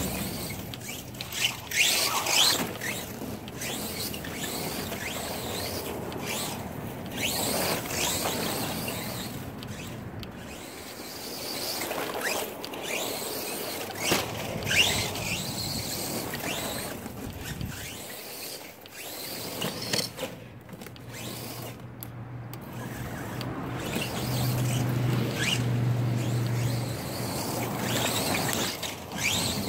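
Redcat Racing Caldera radio-controlled short course truck driving over a dry lawn: its motor whines up and down in pitch with repeated bursts of throttle, with its tyres scuffing through the grass and dirt.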